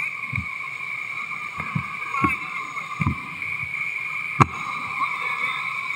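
Whitewater rapids rushing around an inflatable raft, a steady muffled rush, with several dull knocks and one sharp knock about four and a half seconds in.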